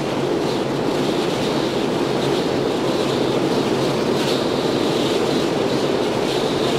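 Steady, even rushing wind noise with no rhythm or pauses.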